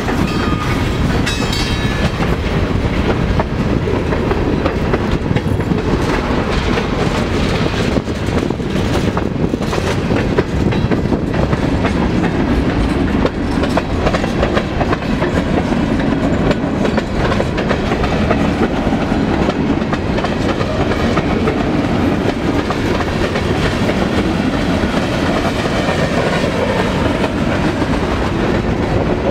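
Freight cars rolling past at close range, steel wheels clicking over the rail joints in a steady clickety-clack over a continuous rumble.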